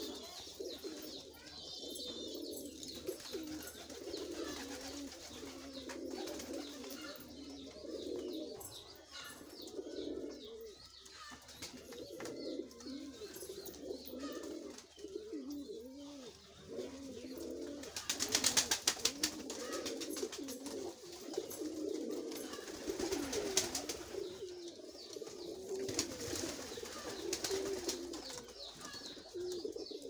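Domestic pigeons cooing in a loft, with low rolling coos running on almost without a break as two of them squabble. A brief burst of rapid clattering comes about 18 seconds in.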